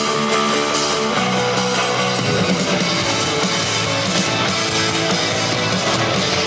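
Rock music with guitar: held chords that change about one and two seconds in, then a busier, fuller passage.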